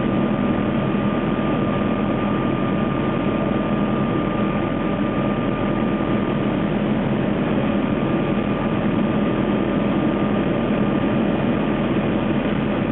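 McDonnell Douglas 500E helicopter in steady cruise, heard inside the cabin: a constant dense drone of turbine and rotor with a thin steady high whine over it.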